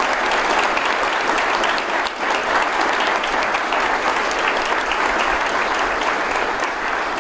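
Audience applauding steadily in a large hall as a new slate of officers is presented.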